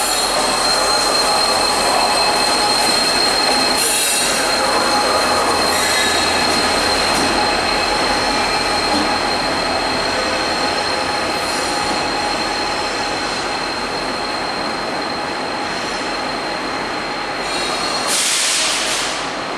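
VIA Rail passenger train rolling out of the station, its steel wheels squealing on the rails in a steady high-pitched tone over the train's rolling noise, which fades slightly as the rear F40PH-2 locomotive draws away. A brief hiss about eighteen seconds in.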